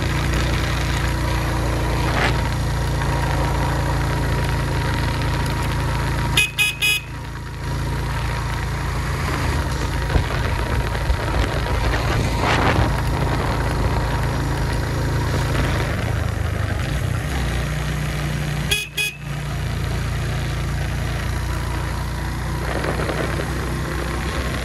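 Suzuki GS150 motorcycle riding along with a steady engine and wind rumble. Twice, about twelve seconds apart, a horn gives a quick cluster of short beeps.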